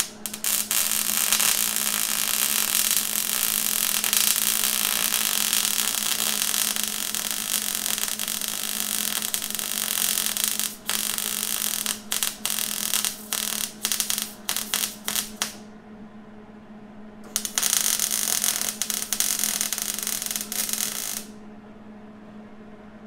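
Arc welding on steel: a steady crackling hiss for about ten seconds, then a string of short start-stop bursts, a pause, and a final run of about four seconds that cuts off sharply near the end. A steady low hum sits underneath throughout.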